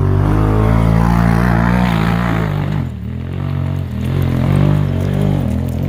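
Off-road buggy engine revving hard under load as it climbs a steep loose-rock hill, its pitch rising and falling. The sound drops briefly about three seconds in, then the engine picks up again.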